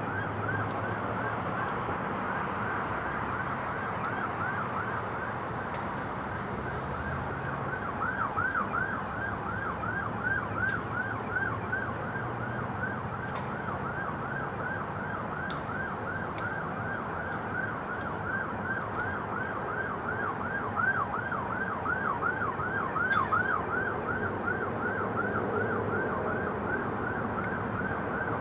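Emergency vehicle siren in rapid yelp mode, its pitch sweeping up and down about three times a second without a break.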